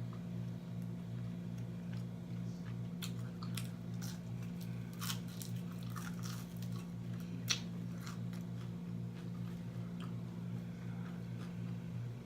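A person biting and chewing crunchy fried food close to the microphone, with scattered sharp crunches, over a steady low hum.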